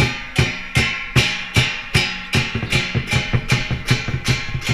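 Dragon dance percussion, drum with cymbals, beating a steady rhythm of about two and a half strikes a second, each cymbal crash ringing on. From about two seconds in, quicker strokes fill in between the main beats.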